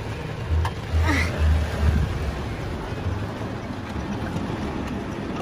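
Heavy rain drumming steadily on a pickup truck's roof and windows, heard from inside the cab, with a few low thuds in the first two seconds.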